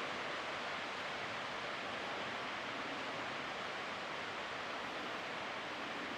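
Steady, even background hiss with no distinct knocks, clicks or motor tone.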